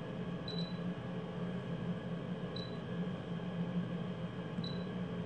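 Short high beeps from the BK-350S rework station's touchscreen keypad as digits are tapped in, three of them about two seconds apart, over a steady low hum.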